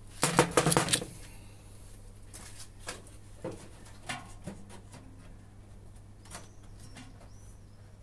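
Handling and clattering at the drum and door opening of an old Indesit washing machine as hands work around inside it. A loud rattle comes in about the first second, followed by scattered small knocks and clicks. A bird chirps briefly twice near the end.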